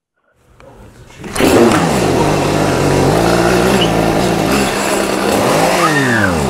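Gasoline chainsaw revving loudly from about a second and a half in, its pitch swinging up and down with the throttle, then dropping away near the end.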